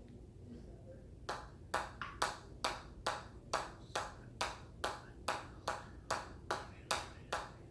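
A steady run of sharp, ringing taps, a little over two a second, starting about a second and a half in: repeated strikes kept going in a counted run.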